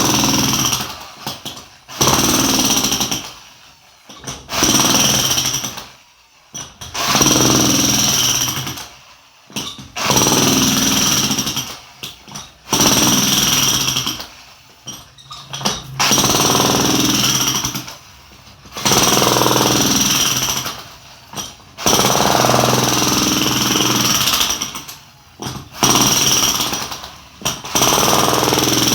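Jackhammer chipping into a concrete wall, running in repeated bursts of one to three seconds with short pauses between them.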